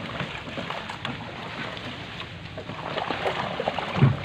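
Small wooden canal boat being poled through dense water hyacinth: leaves rustling and crackling against the hull, with a low bump near the end.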